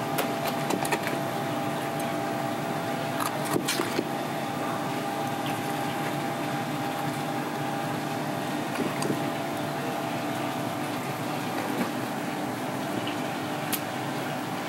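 A steady machine hum and rushing noise fill the background. Over it come a few light clicks and knocks from a knife working inside a fish on a plastic cutting board; the strongest is a little under four seconds in and another comes near the end.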